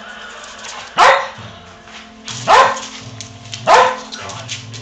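A dog barking three times, about a second and a half apart, each bark falling in pitch.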